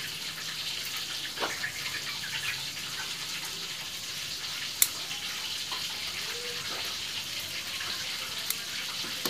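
Faint light clicks of thin tin being pressed by fingers into a stripped manifold bolt hole in a motorcycle's cylinder head, one sharper click about five seconds in, over a steady hiss.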